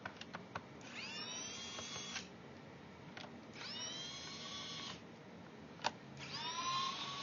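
Small electric screwdriver backing screws out of a laptop's bottom case: three short whirring runs, each rising quickly in pitch as the motor spins up and then holding, with a few sharp clicks as the bit is set on each screw.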